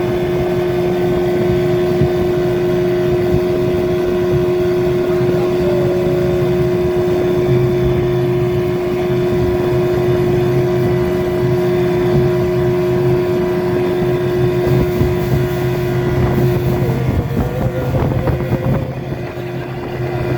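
Hidea 25 hp outboard motor running steadily under way, with wind on the microphone. About three-quarters of the way through its note shifts and wavers, and the level dips briefly near the end.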